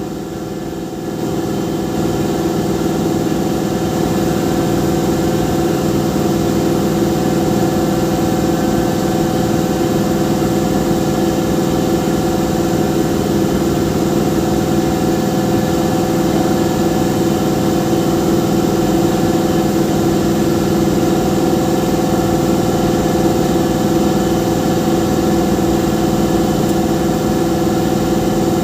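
Engine running steadily at idle, with a constant hum. It rises in level over the first two seconds, then holds steady.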